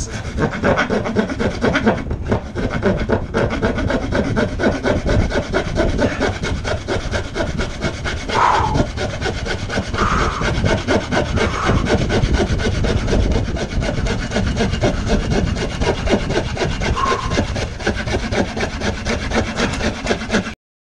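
Hand saw cutting through a wooden board in fast, steady back-and-forth strokes. It cuts off suddenly near the end.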